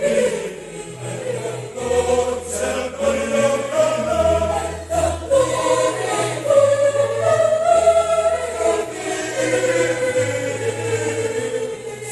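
Mixed choir of women and men singing together in parts, holding long notes that move slowly from pitch to pitch.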